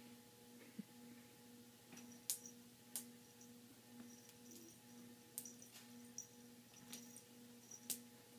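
A cat playing with a feather toy on a hardwood floor: a few scattered sharp clicks and taps over a faint steady, pulsing hum, with near silence otherwise.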